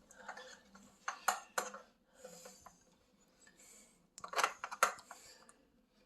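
Small metal hardware clinking and tapping, screws and door-handle parts being handled, in two short clusters of clicks about a second in and again about four seconds in.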